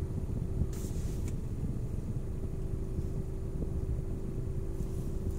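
Steady low rumble of a car in motion heard from inside the cabin, with a constant engine hum.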